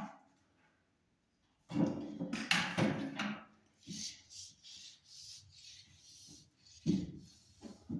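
Short rubbing and scraping sounds against wood, a run of quick hissy scrapes in the middle and a heavier scuff before and after.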